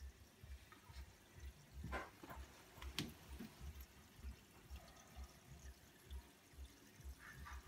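Faint trickling and dripping of aquarium water from the tank's filter outflow and fine bubbles, with a soft low pulsing about two or three times a second. Two sharp drips or clicks stand out about two seconds in and again a second later.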